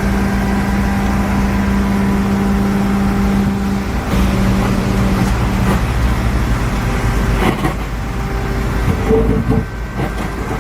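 Excavator engine running steadily under load, with a steady hum that stops about six seconds in and a few knocks near the end.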